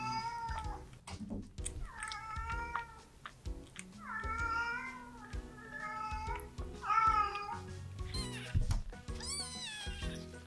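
A newborn kitten mewing, about five drawn-out cries a couple of seconds apart, the last ones higher and falling in pitch, over soft background music.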